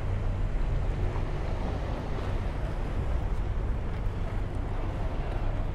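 Steady wind rushing over the microphone, mixed with water rushing past the bow of a sailing yacht under way.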